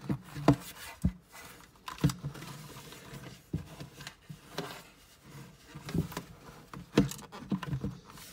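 Handling noise from a plastic-cased transistor radio being turned over and set back down: about ten irregular knocks and clicks of the case against the shelf and under the fingers.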